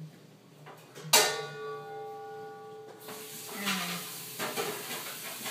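A sharp metallic clank about a second in that rings on for nearly two seconds with several clear tones, like a struck pot or dish, followed by a steady hiss.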